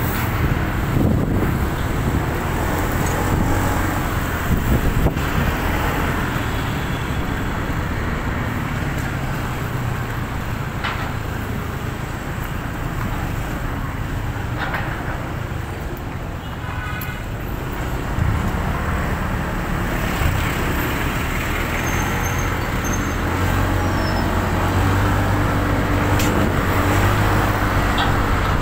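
Road traffic noise heard from a moving motorcycle: the steady run of engines and tyres from surrounding motorbikes, cars and trucks. A low engine hum grows stronger near the end.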